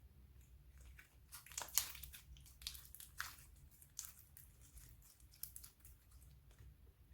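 Slime being squeezed and worked by hand, giving a run of soft crackles and small pops.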